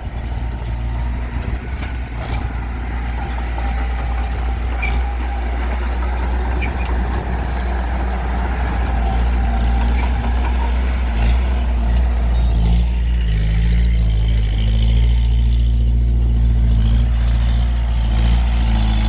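Heavy diesel construction machinery running with a deep, continuous rumble. The engine note grows louder and steadier about two-thirds of the way through.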